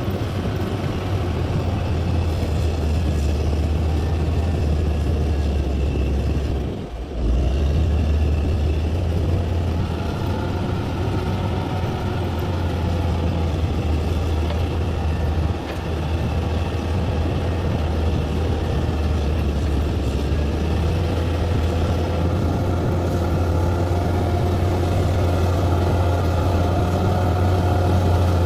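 Bulldozer's heavy diesel engine running steadily with a deep rumble. The sound drops away briefly about seven seconds in, then picks up again.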